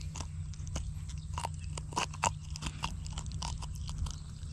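Irregular crackling clicks and crunches from gloved hands handling a hooked fish and working the lure out of its mouth, the two loudest about two seconds in, over a steady low hum.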